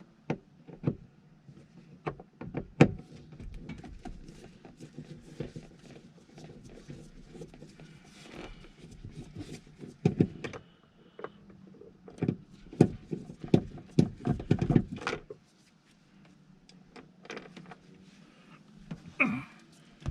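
Hand work on a car's inner door panel: scattered clicks, knocks and rattles of a screwdriver, screws and plastic trim as the panel is taken off.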